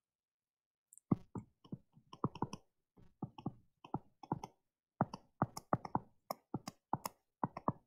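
Pen stylus tip tapping and clicking on a tablet screen during handwriting: an irregular run of short, light clicks that starts about a second in.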